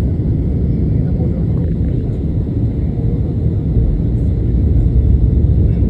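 Steady low rumble of jet engines and airflow heard inside an airliner cabin during the descent to land.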